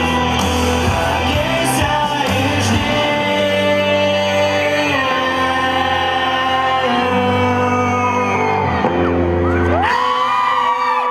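Live pop band playing, with singing and shouts over a steady bass; about ten seconds in the bass drops out, leaving held, gliding vocal notes.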